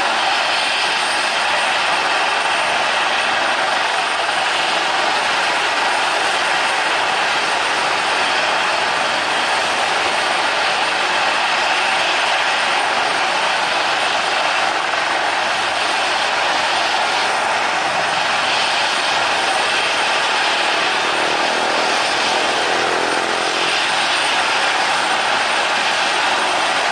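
Steady whine and rush of a business jet's twin rear-mounted turbofans at taxi power, joined in the second half by the rotor and turbine noise of a military transport helicopter taxiing close by.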